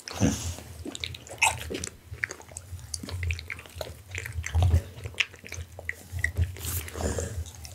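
Close-miked mouth noises of an American pit bull terrier: a run of wet smacks, lip-licking and chewing clicks.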